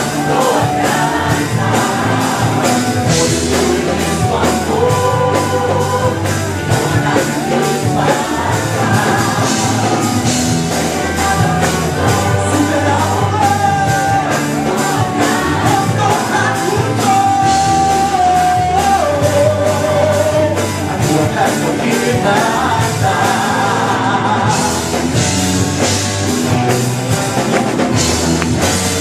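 A rock band playing a worship song: a steady drum beat and bass under a melody line with long held notes.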